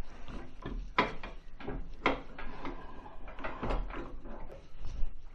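Irregular knocks and clunks as a wood lathe is set up, the tool rest being moved and locked into place against the blank.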